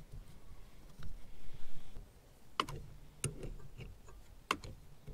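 Wrench clicking against the fittings while the quick-release air coupler is tightened onto the ARB air compressor's T fitting: three sharp clicks in the second half, spaced unevenly.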